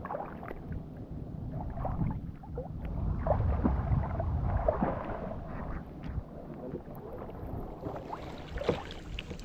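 Water sloshing and splashing against a small boat, with wind rumbling on the microphone.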